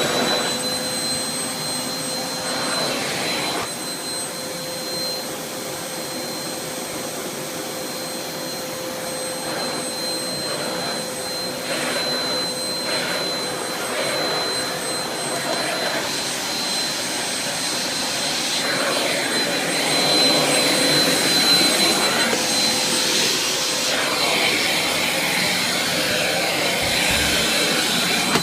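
Hoover Vortex 850-watt pet-hair vacuum cleaner running loud, with a steady high whine over the rush of suction that swells and eases as its hard-floor head is pushed over carpet.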